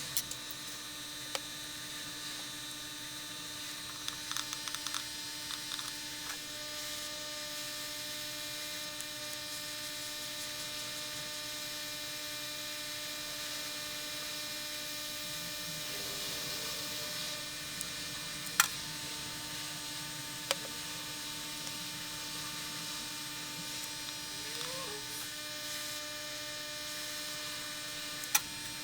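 Steady electrical hum and hiss from running workbench equipment, broken by a few sharp clicks, the loudest about two-thirds of the way in.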